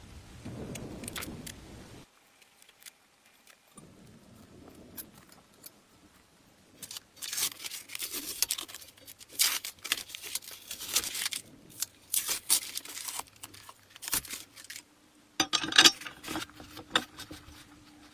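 Irregular metallic clinks, rattles and scrapes of small metal parts and hand tools being handled, loudest in the second half, with a faint steady hum near the end.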